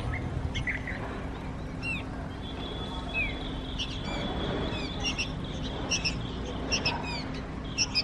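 Nestlings of a small bird chirping in the nest: short, high, rising-and-falling cheeps, a few at first and then many in quick clusters through the second half, as the chicks gape and beg for food.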